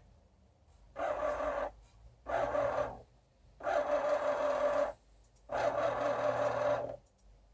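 Excalibur Phantom Force chess computer's motorised magnet carriage whirring under the board as it moves pieces by itself. There are four runs of a steady whine, each about a second long, with short pauses between.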